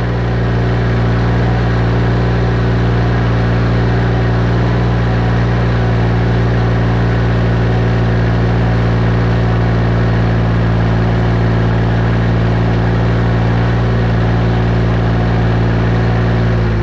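Compact tractor engine running steadily at a constant, fairly high speed, loud and close.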